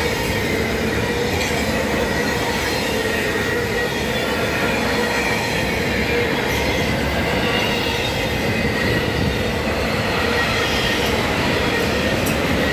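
Enclosed autorack freight cars rolling past close by: a steady rumble and rattle of steel wheels on rail, with a thin steady wheel squeal running under it.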